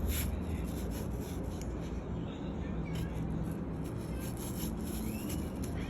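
Small knife cutting into an apple, with faint scraping strokes through the flesh over a steady low hum.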